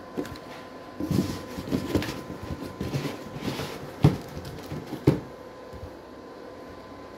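Rustling and knocking from handling a plastic-wrapped 10-inch loudspeaker, with two sharp knocks about four and five seconds in. A faint steady hum runs underneath.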